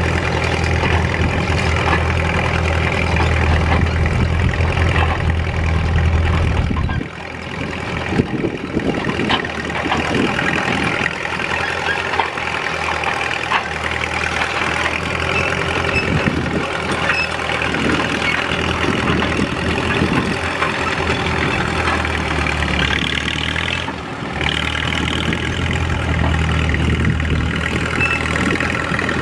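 Caterpillar D2's four-cylinder diesel engine running steadily as the crawler works, pulling a moldboard plow. A deep low rumble is strong at first, drops away abruptly about seven seconds in, and returns near the end.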